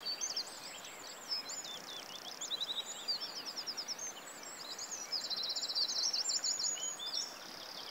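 A chorus of songbirds chirping and singing, with rapid trills and sweeping whistles, over a steady background hiss.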